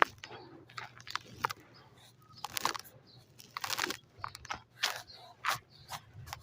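Dry clumps of white sand crumbling, in short, irregular gritty crunches and sharp clicks.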